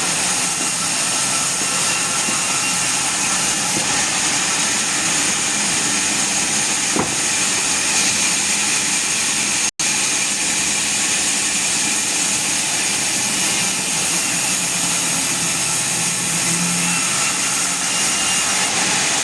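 Sawmill machinery running steadily, a continuous mechanical noise with no breaks except a momentary dropout about halfway through.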